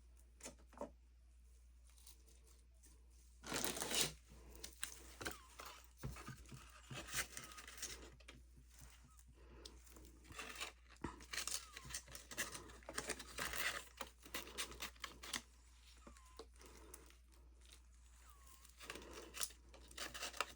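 Irregular crinkling and tearing handling noises in close, rapid spurts, starting a few seconds in, easing off after about 15 seconds and briefly returning near the end.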